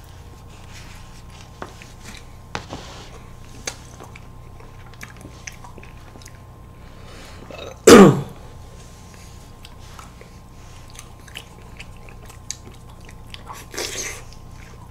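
Eating sounds of people spooning ice cream from a tub: small scattered clicks of spoons and mouths, with one loud, sudden mouth sound about eight seconds in and a weaker one near the end.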